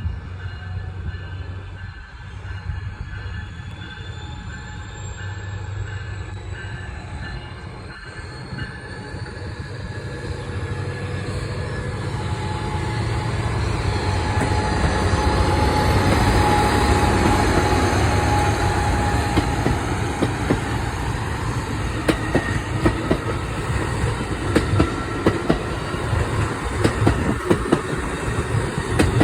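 Train coming past on the tracks: a low rumble builds to its loudest about halfway through, then fast clicking of wheels over rail joints through the last third.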